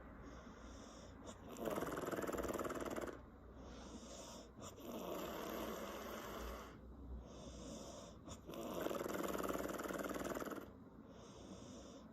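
A woman snoring with lip flapping: two loud fluttering snores, about 2 s in and about 9 s in, each lasting a second or two, with quieter breathing between them.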